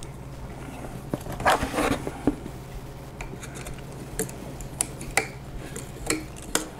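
Small metal parts clinking and scraping as a screw is fitted into the milled aluminium bracket of a camera gimbal, with scattered light clicks and a louder clatter of scrapes about a second and a half in.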